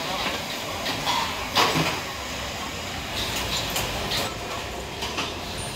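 Open-air hawker street ambience: a steady hum of passing traffic with scattered clinks and knocks, and one loud clatter about a second and a half in.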